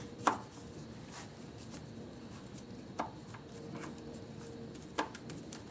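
Three sharp clicks of a hand tool and parts being handled at a car engine's intake, the first and loudest a moment in, the others about three and five seconds in, over a faint steady hum.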